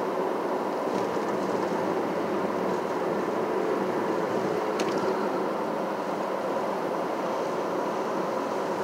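Steady road and tyre noise of a car driving, with a single sharp click about five seconds in.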